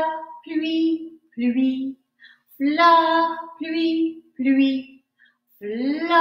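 A woman singing a short melodic phrase three times over, each time opening with a note that slides up and holds, followed by a few shorter held notes.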